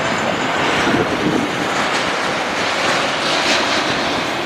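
Jet engines of an Airbus A330 airliner passing low over a runway: a steady, loud rush of noise, with wind on the microphone.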